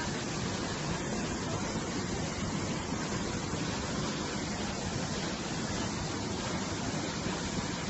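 Muddy floodwater rushing hard down a rocky creek and over a small fall, a steady, unbroken rushing noise of a stream in spate.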